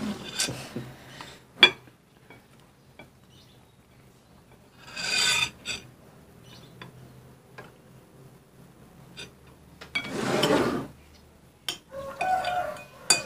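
A rice scoop and a spoon scraping and clinking against a bowl and a plate as rice is served and eaten: scattered clicks, with two longer scrapes about five and ten seconds in.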